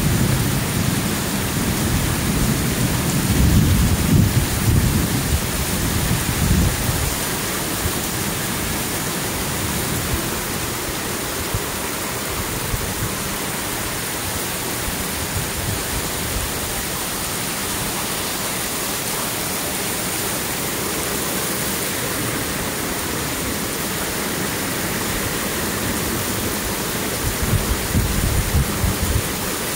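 Heavy thunderstorm rain pouring steadily onto pavement. A low rumble sits under it for the first several seconds and returns near the end.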